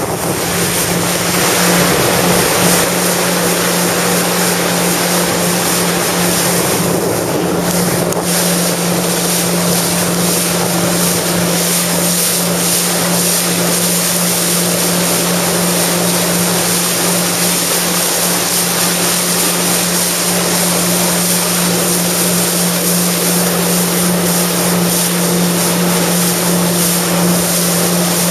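Yamaha jet ski's engine running at speed with a steady drone holding one pitch, over rushing water spray and wind buffeting the microphone.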